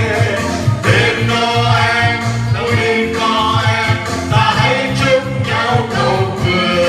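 A Christmas song: singing voices over instrumental accompaniment with a steady bass pulse.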